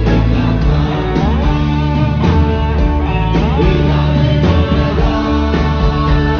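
Live rock band playing at full volume: electric guitar, bass and drums keeping a steady beat, with a man singing into the microphone.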